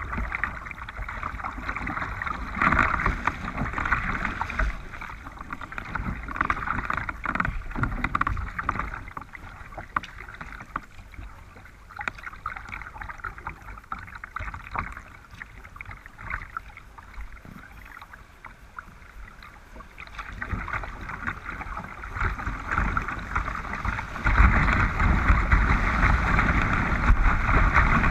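River water rushing and splashing against a kayak's bow as it moves downstream. It grows clearly louder near the end as the kayak runs into a stretch of rapids.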